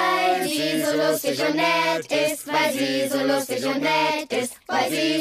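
A chorus of cartoon voices, children and adults together, singing a party song in unison on long held notes, in praise of the guest of honour.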